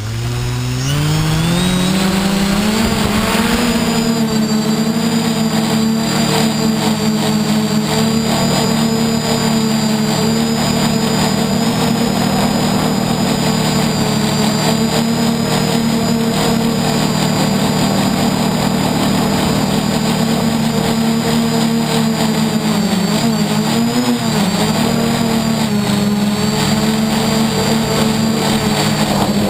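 Y6 multirotor's six electric motors and propellers spinning up for takeoff, pitch rising over the first few seconds, then a steady whine in hover. The pitch wavers briefly about 23 seconds in as the throttle changes.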